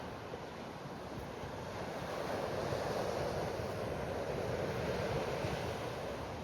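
Sea waves washing onto a beach, the surge swelling about two seconds in and easing off near the end, with wind buffeting the microphone.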